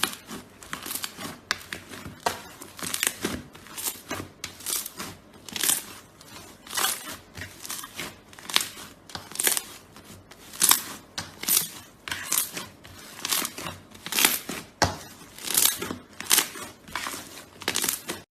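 Slime being worked by hand, making a string of short, sharp squishing and crinkling sounds, irregular, about one or two a second.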